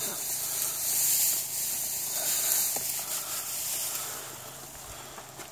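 Steady hiss of falling rain, growing fainter over the last second or so.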